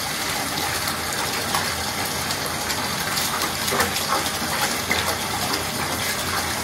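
A bathtub faucet runs full, its stream pouring steadily into a tub already filled with water.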